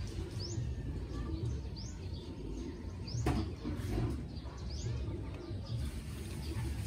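A bird repeating a short, rising chirp about every second and a half, over a steady low rumble, with one sharp click about three seconds in.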